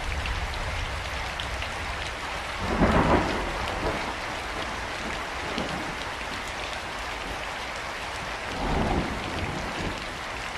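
Steady rain falling, with two brief low rumbles of thunder: one about three seconds in and one near the end.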